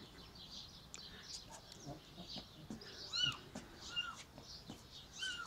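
Cat meowing: three short, high mews about a second apart, starting about three seconds in, each rising then falling in pitch.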